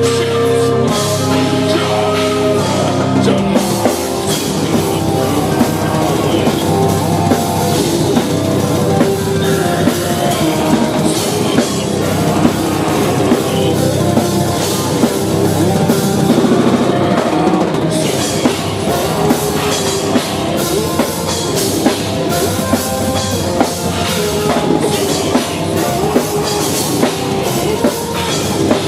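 Live metal band (death metal / djent) playing on stage, with distorted guitars, bass and drums. Held notes ring for the first few seconds, then the full band drives on with fast, dense drumming.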